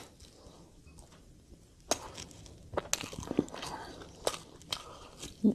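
Close-miked chewing and biting of chicken off the bone: scattered crunches and clicks at irregular intervals, with a louder low thump near the end.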